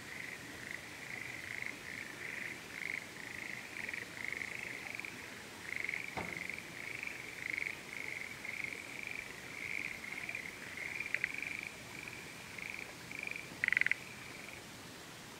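A frog calling: a long run of short pulsed croaks, about two a second, rising and falling in loudness. A louder burst comes near the end, and then the calls stop.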